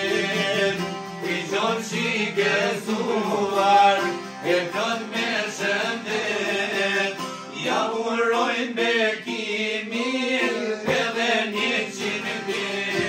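Albanian folk song: a man sings in a chant-like style over two long-necked plucked lutes played together.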